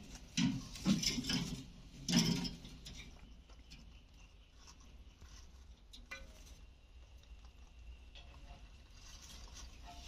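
Alexandrine parrots moving about on a wire cage floor and feeding from a steel bowl of watermelon. Two louder bursts of scraping and rattling come about half a second and two seconds in, followed by soft scattered clicks of beaks and feet.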